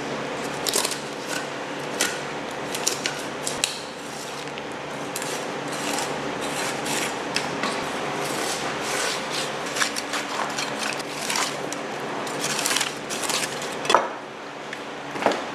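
A knife filleting a mahi mahi: irregular clicks, taps and scraping swishes of the blade against the fish's bones and the cutting board. A steady low hum runs underneath.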